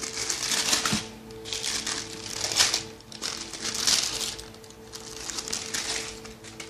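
Packaging wrapping being handled and crinkled in four or five rustling bursts, over steady background music.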